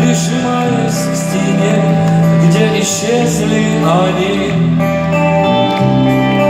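Rock band playing live: loud held chords over a steady bass line, with a wavering, bending melody line in the first part.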